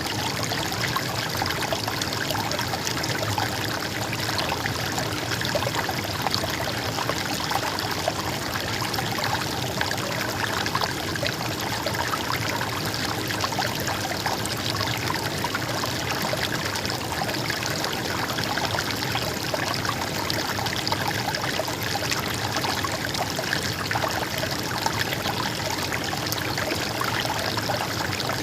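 A river stream flowing and babbling steadily, with a continuous trickling rush of water.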